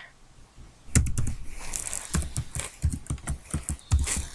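Rapid, irregular clicking and tapping close to the microphone, starting about a second in, with several sharp clicks a second.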